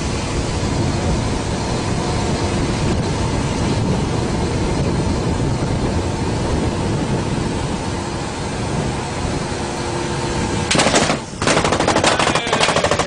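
Steady rush of wind, water and running boat engines at sea. About eleven seconds in, automatic gunfire breaks out in several loud rapid bursts, louder than everything before.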